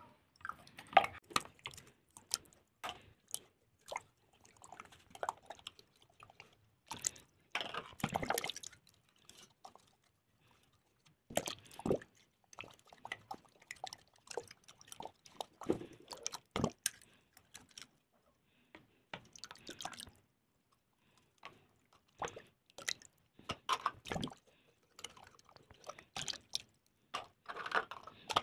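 Water splashing and dripping as eggshells are rinsed by hand at a sink, with irregular small clicks and knocks of the shells against each other and the basin. The sounds come in uneven bursts with short pauses between them.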